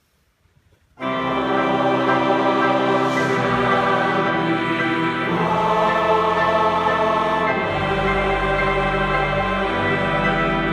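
Large mixed choir, men and women together, singing sustained full chords. It enters together and suddenly about a second in, after a near-silent pause.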